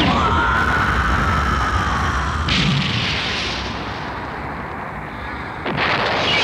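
Animated explosion sound effect: a sudden blast over a low rumble, with a high whine that holds and slowly drops over the first couple of seconds, a second burst about two and a half seconds in, and a fresh loud blast near the end.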